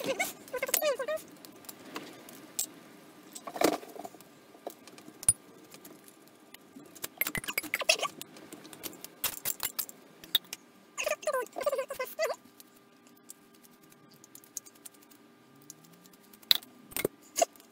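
Irregular metallic clicks and clinks of a screwdriver working the screws and parts of a Holley four-barrel carburettor as it is taken apart.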